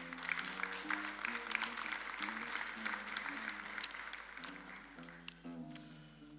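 Audience clapping that thins out and dies away after about five seconds, over soft plucked-string background music.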